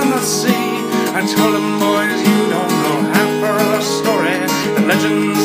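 Music: acoustic guitar strumming an Irish folk ballad, with a melody line over it.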